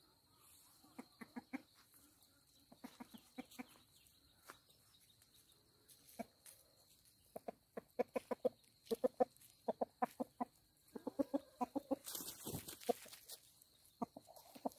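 Chicken clucking in repeated quick runs of short calls, with a brief rush of noise near the end.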